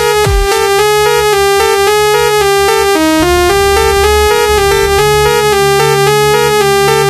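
Electronic background music: a synthesizer keyboard melody of short, quickly repeated notes. Deep bass-drum hits with a falling pitch stop within the first second, and a low sustained bass comes in about three seconds in.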